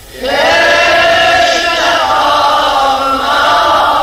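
Chanted Shia mourning lament (nauha) with no instruments heard. After a brief break at the start, the singing comes back in and holds long, wavering notes.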